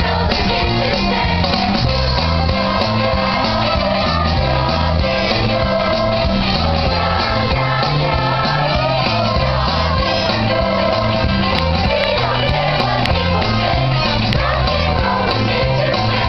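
Middle school chorus singing together over an instrumental accompaniment whose bass line steps steadily from note to note.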